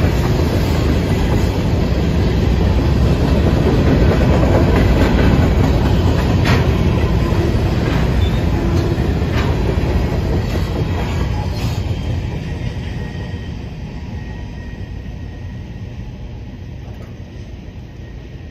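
Freight train of covered hopper cars rolling through a grade crossing: a loud rumble of wheels on rail with a few sharp clicks. The sound fades steadily after about twelve seconds as the last cars pass.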